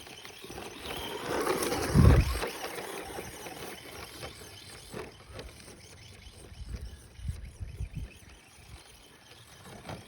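Electric 1/10 RC monster truck driving, its small motor whining unevenly, with a heavy thump about two seconds in and light knocks later.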